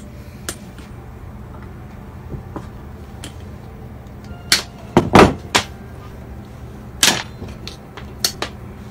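Cutting pliers and electrical wire handled on a board of metal conduit and junction boxes: scattered clicks and knocks, the loudest cluster about five seconds in, over a steady low hum.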